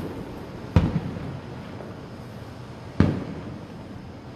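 Aerial fireworks shells bursting: two loud booms about two seconds apart, one about a second in and one about three seconds in, each trailing off in a rolling echo.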